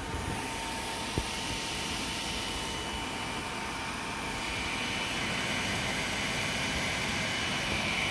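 Small electric cooling fan running steadily with a whirring hiss and a faint steady whine, as on a homemade Peltier mini air conditioner; a single sharp click about a second in.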